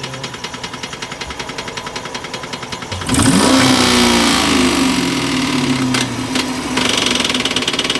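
Engine with a spun bearing idling with a fast, even knock. About three seconds in it is revved: the pitch rises and holds for a few seconds, then the knocking comes through strongly again near the end. The knock is the sign of the spun bearing, damage the owner says can't be fixed and will eventually lock up the engine.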